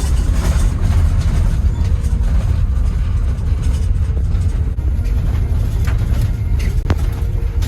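Work van driving, its engine and road noise making a steady low rumble.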